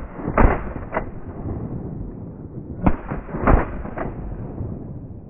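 Four shotgun shots at a flushing pheasant: two under a second apart near the start, then two more close together about three seconds in, the first and last loudest, over a steady hiss.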